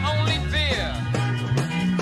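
Late-1960s psychedelic rock band playing an instrumental break: an electric guitar lead with bent, sliding notes over a heavy, boosted bass line. The bass slides upward near the end.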